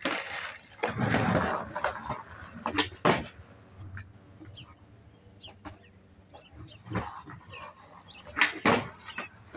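Skateboard on a concrete sidewalk: wheels rolling and scattered board clicks, then two loud sharp clacks close together near the end as the board is popped and comes down.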